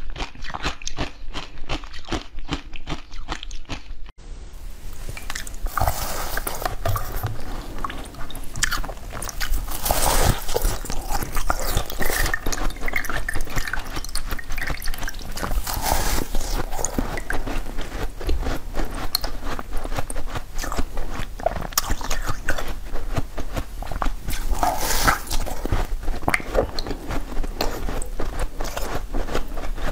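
Close-up ASMR eating of frozen jelly: steady rhythmic chewing for the first few seconds, then crunchy, crackling bites and chewing, with a wet, dripping edge.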